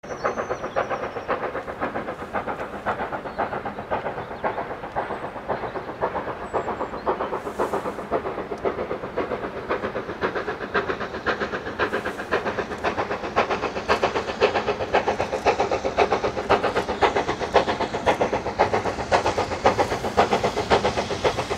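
Steam locomotive working along the line, its exhaust beating in a rapid, even rhythm of about four beats a second, growing louder about two-thirds of the way through.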